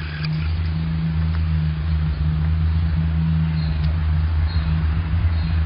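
Loud, steady low droning hum made of two deep, unwavering tones with a rough edge: the unexplained 'strange noise' that listeners hear as coming from the sky.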